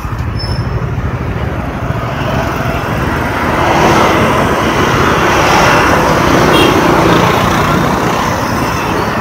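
Busy city street traffic, engine and tyre noise from the surrounding vehicles, heard from a vehicle moving through it. The noise swells to its loudest around the middle and eases off near the end.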